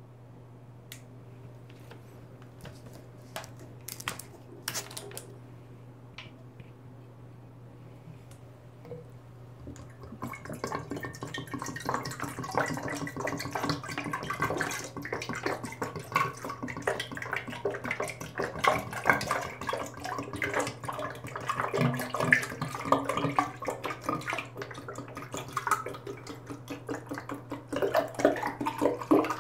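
Orange juice glugging and splashing as it is poured from an upturned plastic bottle into a glass carafe, starting about a third of the way in and running on unbroken. A few sharp clicks come before the pouring.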